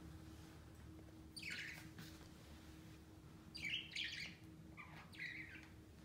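Budgerigar chirping: one short chirp about a second and a half in, then a run of several quick chirps in the second half.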